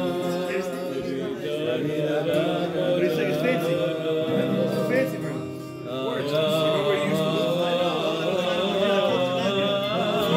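Men singing together to an acoustic guitar. The singing drops briefly about halfway through, then picks up again.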